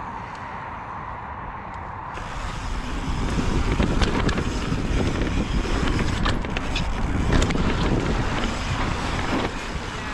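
Mountain bike riding down a rough dirt trail: wind buffeting the microphone over the tyres rolling on dirt and rock, with scattered clicks and rattles from the bike. It gets louder about three seconds in.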